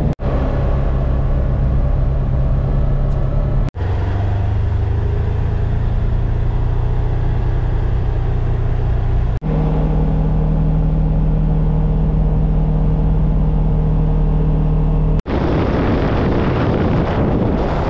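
Polaris Ranger 1000XP side-by-side's twin-cylinder engine running steadily while driving. It breaks off briefly three times, the engine pitch shifting after each break, and a rougher rushing noise rises over it near the end.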